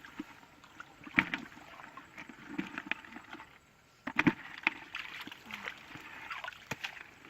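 Water sloshing and splashing, with irregular sharp knocks and clicks; the loudest come about a second in and again a little past halfway.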